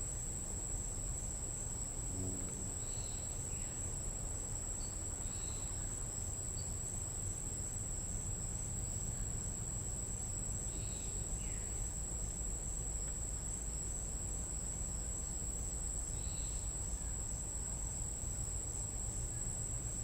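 Tropical night insects keeping up a steady, unbroken high-pitched trill. Short, scattered calls from other night animals break in every few seconds, one of them a sliding call about eleven seconds in, over a low steady rumble.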